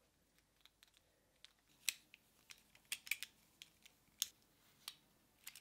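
Faint, scattered clicks and ticks of small plastic and metal parts: a plastic D-sub connector shell being fitted around its plug and a small screw being driven into it with a thin driver.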